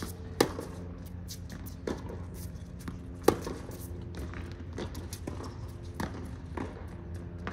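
Tennis rally: sharp pops of racket strings hitting the ball, the two loudest just after the start and about three seconds in, with fainter hits and bounces from the far end of the court between them. A steady low hum runs underneath.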